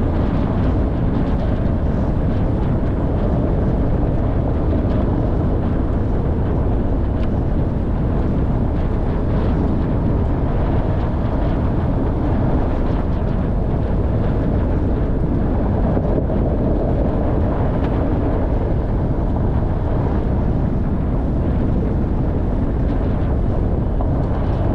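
Off-road vehicle driving on a rough track: a steady, loud mix of engine and road noise.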